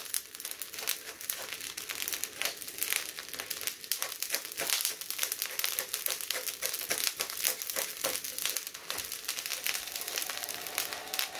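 Wooden spatula scraping and shovelling hot salt over corn cobs in a wok: a dense, gritty crackle of salt grains sliding and pouring, with many small ticks.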